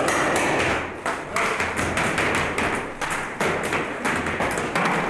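Paintball markers firing: a string of irregular sharp pops and thuds, a fraction of a second to about a second apart, each dying away quickly.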